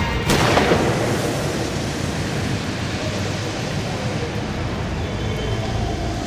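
A sudden loud crash, like a thunderclap or explosion effect in the skating program's music track, that rumbles on and slowly dies away over several seconds.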